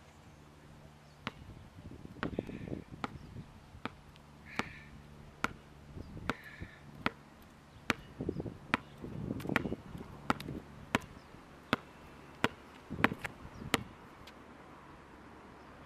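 A basketball bouncing on a hard outdoor court: a series of sharp smacks at uneven intervals, coming closer together and louder in the second half.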